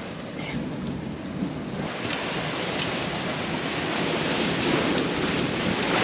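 Surf washing over the reef, with wind buffeting the microphone; the wash swells louder from about two seconds in.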